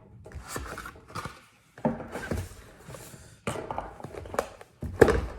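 Handling noise from unboxing a drone kit: irregular rustling of packaging and light knocks of the parts being lifted and set down, with a louder knock about five seconds in.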